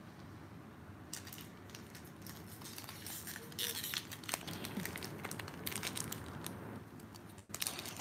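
Foil wrapper of a Pokémon trading-card booster pack crinkling and crackling as it is handled and torn open by hand. It starts about a second in, is densest near the middle, and pauses briefly just before the end.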